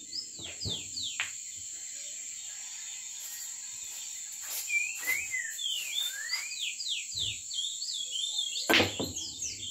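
Sinuca balls knocking together and against the cushions in the first second or so, then a sharp cue strike on the cue ball about nine seconds in. Throughout there is a steady high insect drone, along with repeated quick chirps that fall in pitch.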